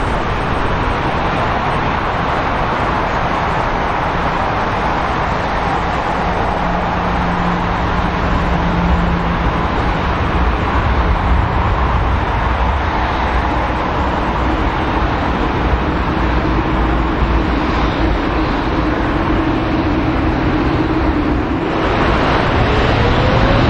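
Jet engines of a Boeing 787 airliner running as it taxis, a steady roar with a faint whine. A rising whine comes in near the end.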